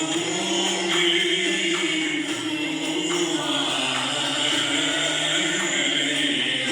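Arabic tarab ensemble music with voices singing together in long held notes over the instruments.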